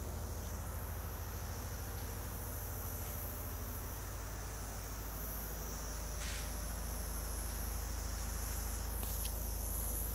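Insects chirring steadily at a high pitch, over a low steady hum.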